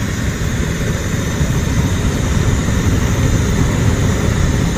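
Wind buffeting the microphone: a loud, steady, fluttering rumble, with a fainter even hiss above it.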